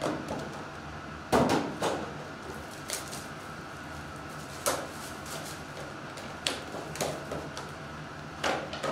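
Shrink-wrapped Topps Star Wars Masterwork trading-card boxes being shifted, picked up and set down: a series of irregular knocks and taps, the loudest about a second and a half in.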